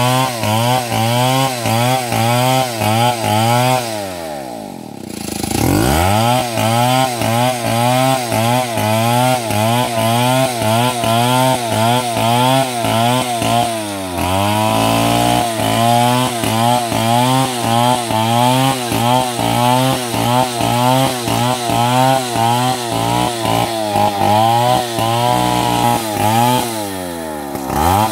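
Stihl MS 070, a big single-cylinder two-stroke chainsaw, running under load while ripping a timber lengthwise into boards. Its engine pitch wavers about twice a second as the bar works through the wood. The revs drop sharply about four seconds in and climb back, dip briefly around the middle, and fall again near the end.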